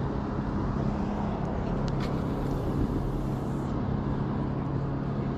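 Steady low engine hum with a continuous rushing noise over it. A faint extra hiss comes in about two seconds in and fades again before the end.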